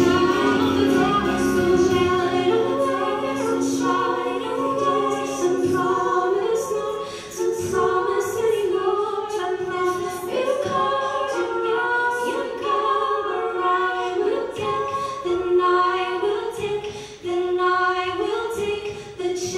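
Recorded song of layered female voices singing in close harmony, largely without instruments. A low held note under the voices stops about six seconds in.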